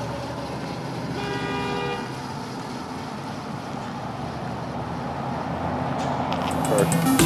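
Tyre hiss on wet pavement and traffic noise as a near-silent Brammo Enertia electric motorcycle rides past, its motor barely audible. A short horn-like tone sounds about a second in, lasting just under a second.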